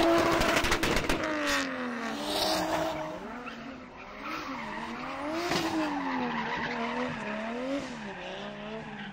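Drift car's engine revving up and down again and again as it slides, with tyre squeal. A rapid stutter of pops comes in the first second or so.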